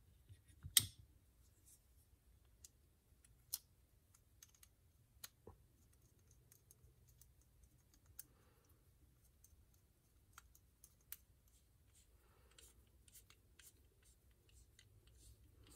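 Faint, scattered small clicks and ticks of a hand bit driver turning a body screw into a Shirogorov Hati R folding knife, with the sharpest click about a second in and a little soft handling rustle later on.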